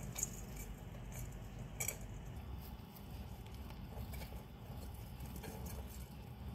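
Faint scattered ticks and light rustling of dwarf hamsters moving about in wood-shaving bedding, with two sharper clicks in the first two seconds, over a low steady hum.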